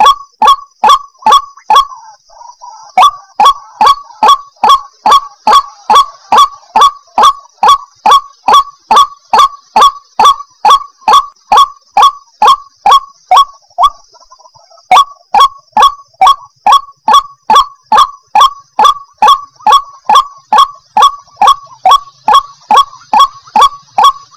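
White-breasted waterhen (ruak-ruak) calling: a loud, monotonous call note repeated about two to three times a second, with a brief break about two seconds in and another a little past the middle.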